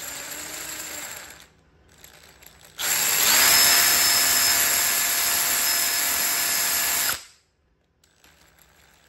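Cordless drill spinning a 3D-printed ABS ball bearing with nylon balls, not yet greased: a brief slow spin, then about four seconds at full speed with a motor whine that rises and holds over the rattle of the rolling balls, stopping abruptly.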